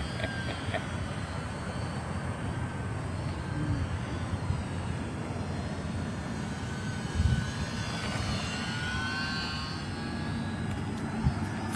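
Small electric RC airplane's motor and propeller whining in flight, its pitch rising then falling as it passes, over a steady low rumble. A brief low thump about seven seconds in.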